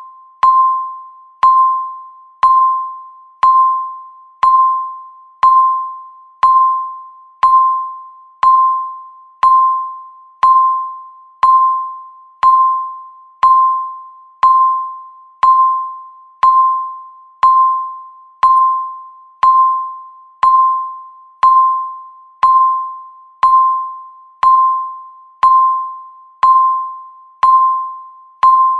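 Countdown timer beep: a single electronic tone that starts sharply and fades, repeating evenly once a second.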